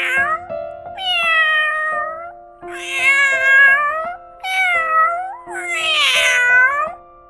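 Domestic cat meowing: a brief call, then four long drawn-out meows that bend up and down in pitch, over background music with steady held notes.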